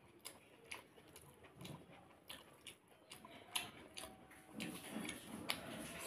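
Close-up eating sounds of a man eating water rice and fried vegetables by hand: chewing and wet mouth smacks, with scattered sharp little clicks, the chewing busier near the end.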